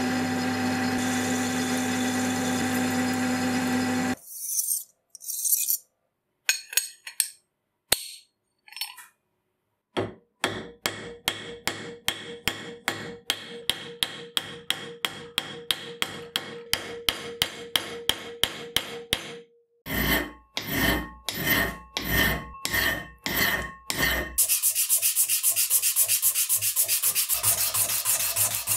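A metal lathe turning steel for the first few seconds, a steady hum with level tones. Then a ball-peen hammer peens a steel rivet into a plate clamped in a vise: quick light taps about four a second with a ringing note, then slower, heavier blows about two a second. Near the end comes fast back-and-forth rubbing as the steel plate is smoothed by hand with a blue pad.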